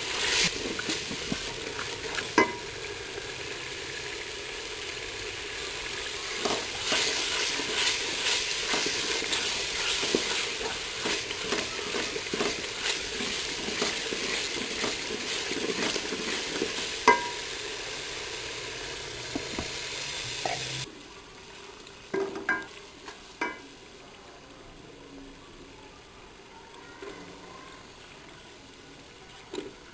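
Onions and red chilli masala sizzling as they fry in oil in an aluminium pot, stirred with a wooden spoon that scrapes and knocks against the pot, with sharp clacks about two seconds in and again past the halfway mark. About two-thirds of the way through the sizzle drops away, leaving a quieter stretch with a few knocks.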